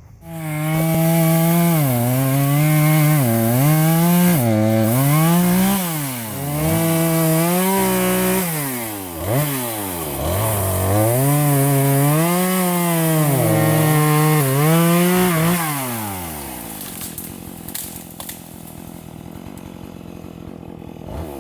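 An engine revving up and down over and over, its pitch rising and falling, then winding down and dying away about three-quarters of the way through.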